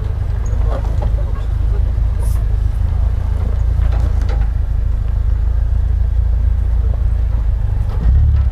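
UAZ-315195 Hunter's engine running at low revs with a steady low rumble while the jeep creeps down a steep slope; the rumble grows louder near the end.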